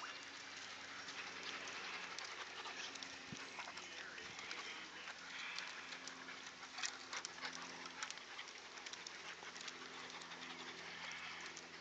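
Dogs panting and moving about close by, with scattered light clicks.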